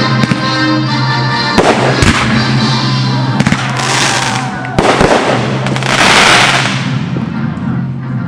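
Aerial fireworks going off: several sharp bangs a few seconds apart, with a loud crackling hiss swelling in the middle, over music playing throughout.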